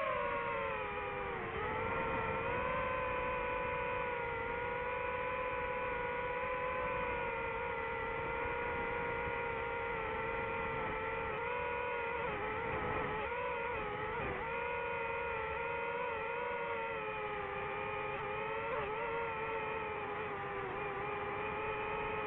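DJI FPV drone's motors and propellers whining steadily in flight. The pitch wavers with motor speed and dips briefly several times.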